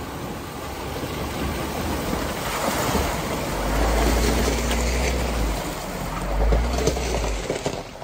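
Four-door Jeep Wrangler driving through a shallow creek crossing, its tyres churning and splashing the water as it passes close by. The sound swells to its loudest about halfway through, with a low rumble under the splashing.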